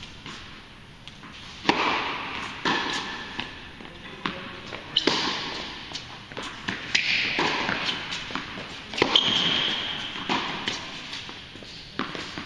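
Tennis ball being struck by rackets and bouncing on the court during a doubles rally: a string of sharp pops at irregular intervals, each echoing in a large indoor tennis hall.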